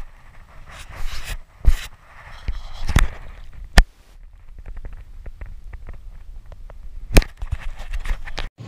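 Handling noise from fingers fumbling at a body-worn action camera: a few sharp knocks and clicks, with a run of faint light ticks in the middle, over a low rumble of wind on the microphone.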